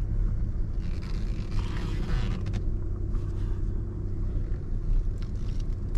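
Steady low rumble inside the cabin of a Lexus LX500d, its 3.3-litre twin-turbo V6 diesel engine running.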